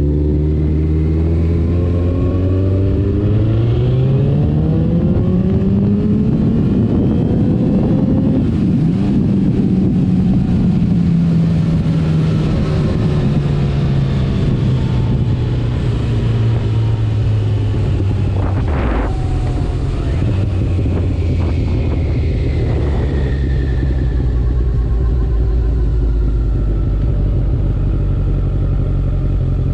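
2012 Kawasaki ZX-14R's inline-four engine running through a Two Brothers Black Series exhaust. Its pitch rises steadily as it accelerates for several seconds, then eases down and holds steady as at a cruise. There is one brief sharp noise about two-thirds of the way through.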